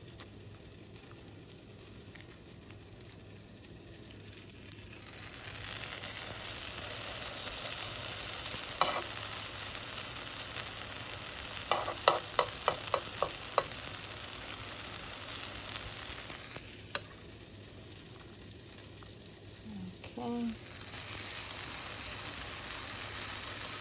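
Shredded zucchini and carrot fritters sizzling in a hot nonstick frying pan. The sizzle comes in two stretches with quieter spells between them, and a quick run of light clicks comes near the middle.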